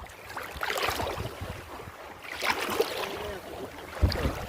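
Open river water and wind noise on the microphone, with a low thump about four seconds in.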